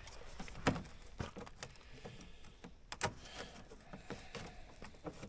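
Hand snips cutting through the edge of a freshly laid fiberglass patch on a snowmobile hood: a series of short, sharp snips and crunches at irregular intervals. The resin is cured past tacky but not yet hard, so the glass still cuts with snips.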